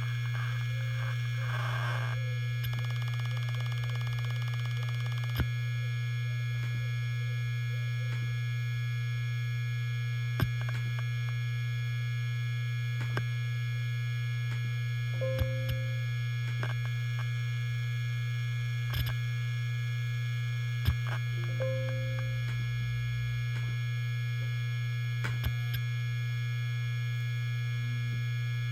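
Helium-filled hard disk drive spinning with a steady hum and a high whine, punctuated by sharp head-seek clicks every few seconds and two short chirps.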